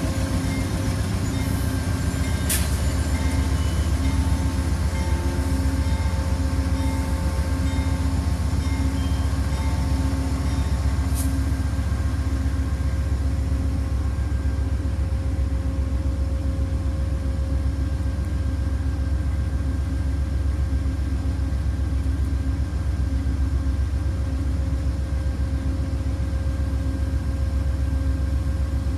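Amtrak passenger train rolling slowly into the station behind its diesel locomotive and easing to a stop: a steady, loud low rumble of the engine and of the cars' wheels on the rails, with faint steady tones above it.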